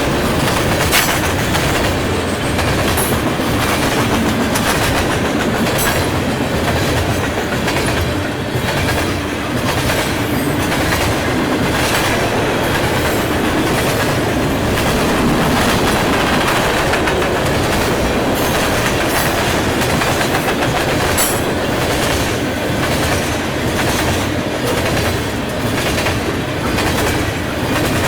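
Long freight train's cars rolling past at speed: a steady rumble of steel wheels on rail, with a quick, irregular clicking as the wheels cross rail joints.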